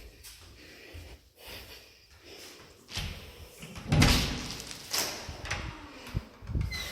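A series of knocks and thuds, the loudest about four seconds in.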